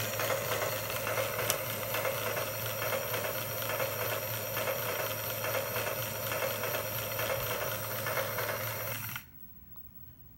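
Lionel Hudson 700E train desk lamp playing its built-in train sound effects, with the motor turning the model locomotive's wheels: a steady, continuous mechanical noise over a hum that cuts off suddenly about nine seconds in.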